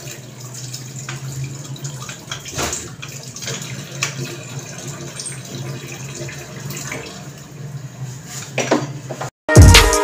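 Kitchen tap running into the sink as utensils are rinsed, with a few light knocks. Near the end it cuts off abruptly into loud electronic music with a heavy beat.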